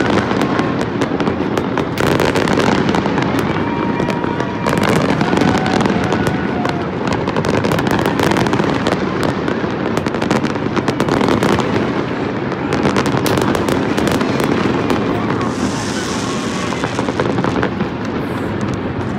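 Fireworks display: a dense, continuous barrage of bangs and crackling from many shells bursting at once, with no let-up.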